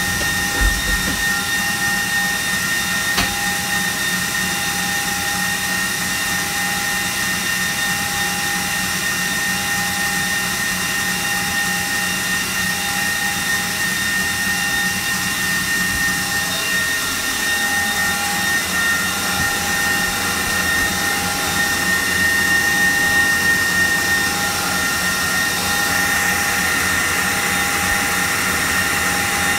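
Electric stand mixer running steadily at high speed, whipping eggs to a pale foam for a sponge cake; its motor gives a constant whine.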